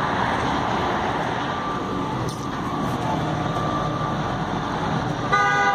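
Steady street traffic noise, with a faint steady whine and a short, sharp horn-like honk near the end.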